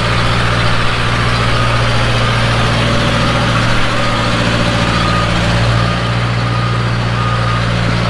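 Snorkel TB120 telescopic boom lift's engine running steadily while its hydraulics move the boom and basket. A faint high tone repeats about once a second.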